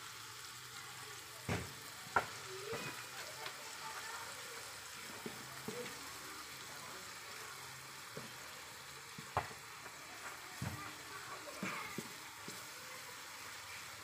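Blended shallot, garlic and bird's-eye chili paste sizzling in oil in an aluminium pot over medium heat while it is stirred, with a few sharp knocks of the spatula against the pot, the loudest about a second and a half, two seconds and nine seconds in.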